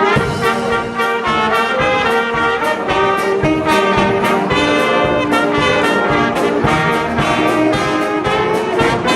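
Live amusement orchestra playing an up-tempo, brass-led piece, with trumpets and trombones carrying the melody over a steady drum beat.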